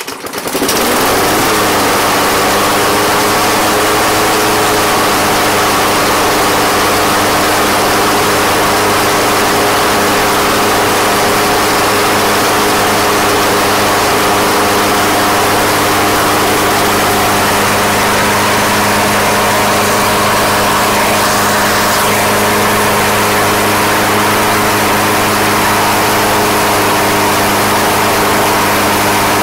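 Honda GCV160 single-cylinder lawnmower engine starting up, rising to speed in about a second, then running steadily and loudly.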